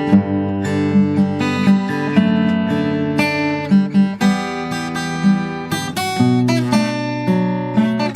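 Morris W-20 acoustic guitar being played, a steady run of strummed and picked chords that change every second or so.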